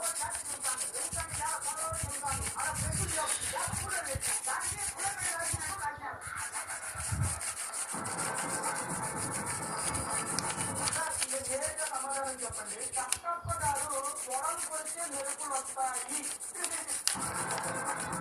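Pencil lead rubbed quickly back and forth over notebook paper laid on raised lettering, a steady scratchy rubbing that briefly stops twice, about six and thirteen seconds in.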